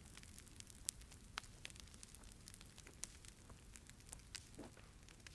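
Wood campfire crackling, with irregular sharp pops from the burning logs over a faint low rumble.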